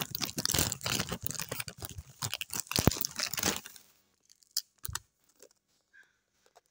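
Crinkling and rustling of a Doritos chip bag being handled, dense crackling for about three and a half seconds, then only a few scattered faint clicks.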